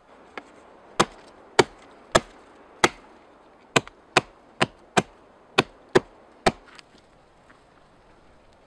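Axe chopping into a branch laid on a log: eleven sharp strikes. Four come about two-thirds of a second apart, then after a short pause seven more come in quicker succession.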